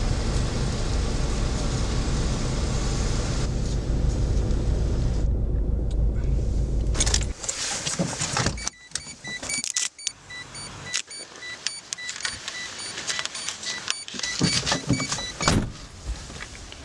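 Car engine idling steadily, then switched off at the ignition key about seven seconds in. Afterwards come clicks and rustling of handling inside the car, and a faint beeping chime that repeats at an even pace for several seconds.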